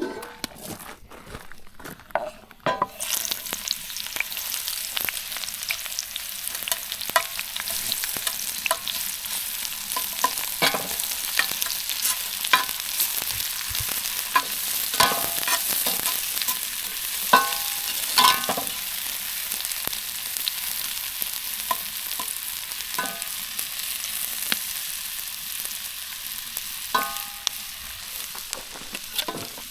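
Meat sizzling as it fries in a pan over a campfire, a steady hiss that comes in suddenly about three seconds in. Scattered clinks and scrapes of a metal utensil against the pan run through it.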